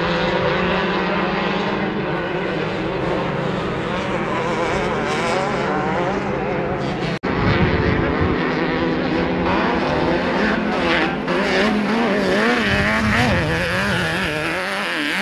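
Off-road race buggy engines running hard and revving, their pitch rising and falling as they accelerate and lift. There is an abrupt break about halfway through, after which more engine revving follows.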